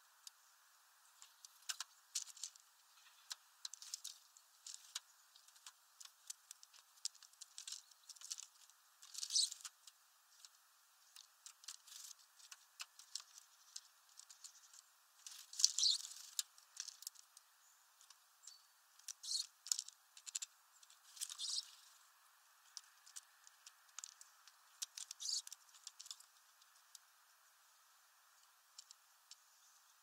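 A Eurasian tree sparrow and a great tit pecking and rummaging in sunflower seeds on a feeder tray: irregular quick clicks and seed rattles in clusters every few seconds, the loudest about halfway through.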